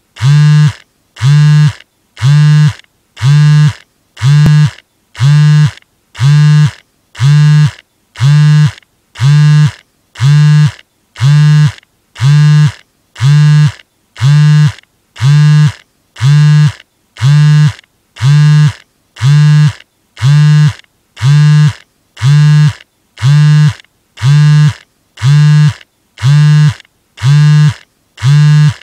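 Mobile phone on vibrate buzzing for an incoming call: a low, even buzz lasting just under a second, repeated with short silent gaps about once every 1.2 seconds.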